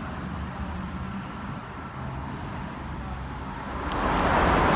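City road traffic: a steady low rumble of engines and tyres, swelling into a louder rushing noise near the end.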